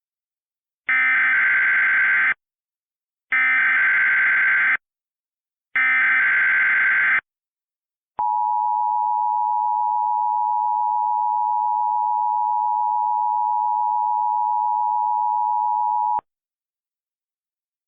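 Emergency Alert System tones opening an alert. First come three identical bursts of digital SAME header data, each about a second and a half long. Then the two-tone attention signal (853 and 960 Hz) holds steady for about eight seconds and cuts off.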